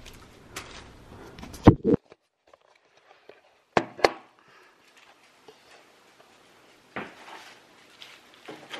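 Handling noise from unpacking decorations from bubble wrap, broken by a few sharp knocks: two a little under two seconds in and two more around four seconds, as the camera is picked up and set down. Soft rustling near the end as a poinsettia wreath is lifted.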